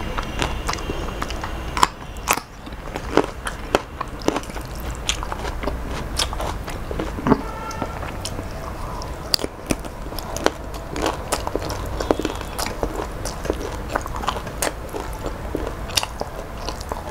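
Close-miked eating sounds of a person chewing mouthfuls of shrimp pulao taken by hand: wet chewing and lip smacks with many short, sharp clicks, over a steady low hum.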